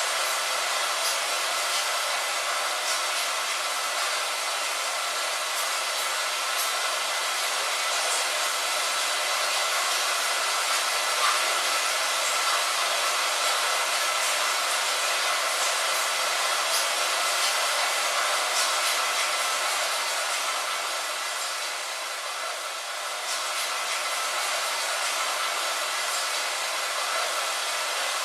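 Steady rain: a dense even hiss with faint scattered drop taps, dipping slightly in level about three-quarters of the way through.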